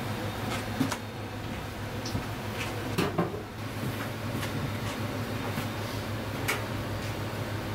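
Steady hum of a commercial kitchen's background machinery, with a few sharp knocks and clinks of metal kitchenware: one about a second in, a short cluster around three seconds, and one near six and a half seconds.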